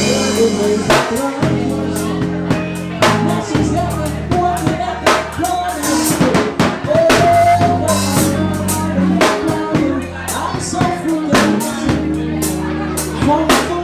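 Live band playing an instrumental passage: a drum kit keeps a steady beat of kick, snare and rimshot hits over long held bass notes and chords.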